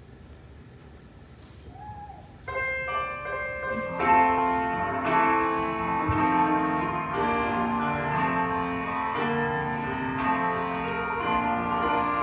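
Instrumental music begins after a low room hum: a few held notes come in about two and a half seconds in, then full chords from about four seconds, changing about once a second.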